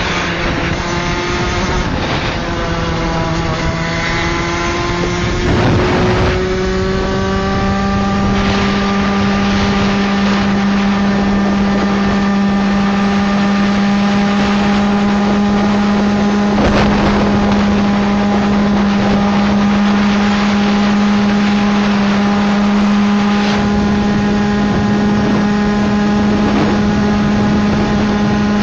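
Derestricted Derbi DRD SM Limited 50cc two-stroke engine running at high revs under way, the revs dipping slightly and climbing back within the first few seconds, then holding steady at cruising speed. Wind rushes over the onboard microphone.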